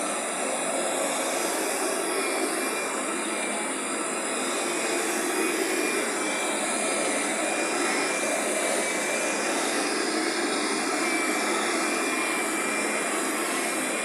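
Kirby vacuum cleaner's motor running steadily with a high whine, driving its carpet shampoo attachment as it lays cleaning foam onto a carpet.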